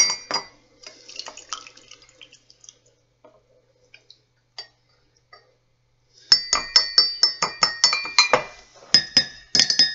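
Metal teaspoon clinking against a ceramic tea cup: a ringing clink at the start and a few faint taps, then a fast run of ringing strikes, about six or seven a second, for some two seconds past the middle, and another short run near the end.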